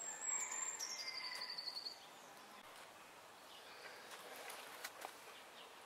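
A songbird singing a high, thin phrase that drops in pitch into a trill, over the first two seconds; after that only a faint outdoor hush with a few light ticks.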